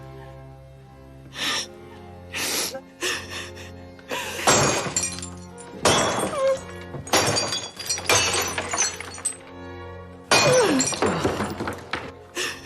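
Porcelain figurines smashing on a floor, one crash after another about every second, over soft sustained music.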